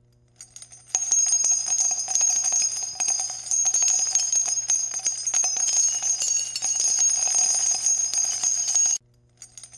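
Jingling of small bells: a bright, shimmering tinkle of many quick strikes that starts about a second in and cuts off abruptly near the end. A faint steady low hum lies underneath.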